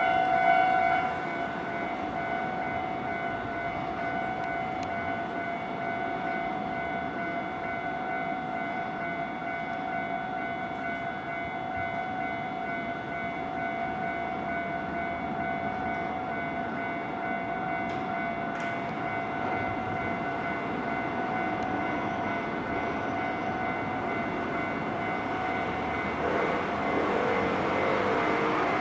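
Japanese level-crossing warning bell ringing steadily over the rumble of a train passing over the crossing. A wavering tone joins near the end.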